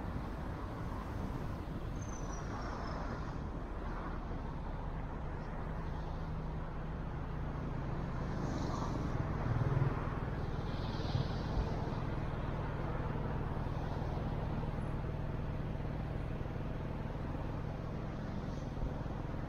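Car driving along a city street: a steady low engine hum under tyre and road noise, with a couple of brief knocks about halfway through.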